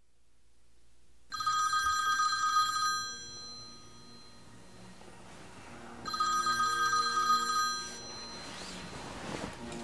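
A phone ringing with an electronic ring tone: two rings of about a second and a half each, the first about a second in and the second about five seconds later.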